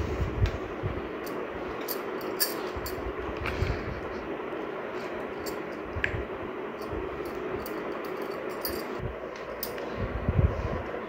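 Steady background hum with scattered faint clicks and a few low thumps.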